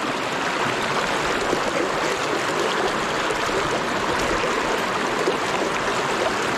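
Fast, shallow river water rushing over rocks in a steady, even rush.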